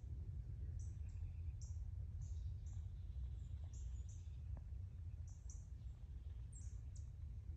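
Small birds giving short, high chirps, repeated every half second or so, over a low steady rumble.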